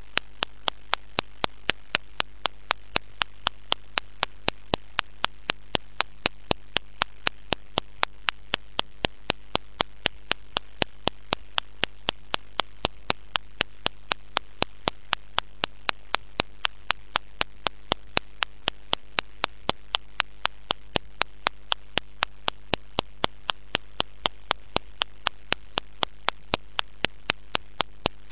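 Steady electrical mains hum with sharp, perfectly regular clicks about three times a second: recording interference, with no sound from the dance itself.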